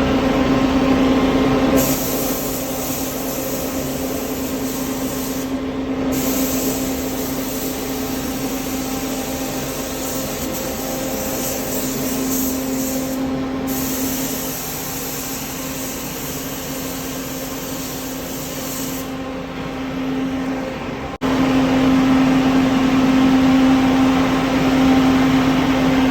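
Spray gun hissing in long passes, with short breaks where the trigger is released, as black epoxy primer is sprayed. Under it runs a steady machine hum that jumps louder near the end.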